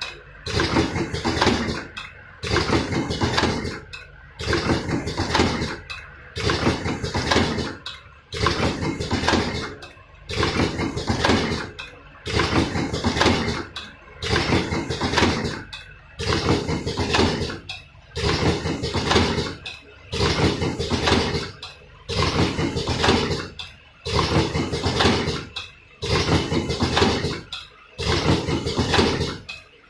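Automatic vertical cartoning machine running, working through a repeating cycle about every two seconds, each cycle a clattering mechanical stroke followed by a brief lull.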